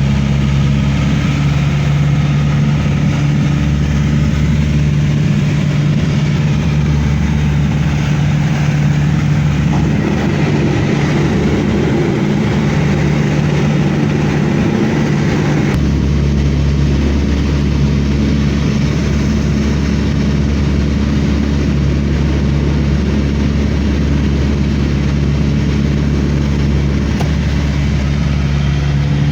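A vehicle engine drones steadily with a low hum. The sound shifts suddenly about two-thirds of the way through and then runs on steadily.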